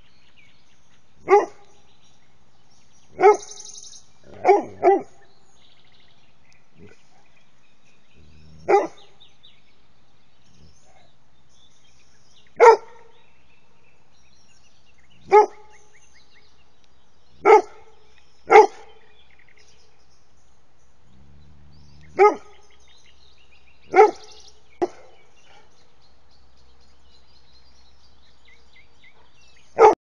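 A dog barking: single sharp barks every few seconds, about a dozen in all, with a couple of quick doubles.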